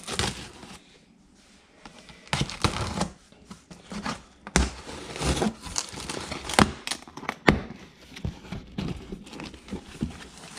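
A knife slitting the packing tape on a cardboard shipping box with scratchy tearing sounds, then the cardboard flaps being pulled open and crinkling. A few sharp clicks come through the middle.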